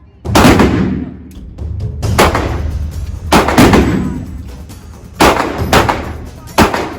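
A series of about seven gunshots fired at irregular intervals, each a sharp report that trails off in reverberation.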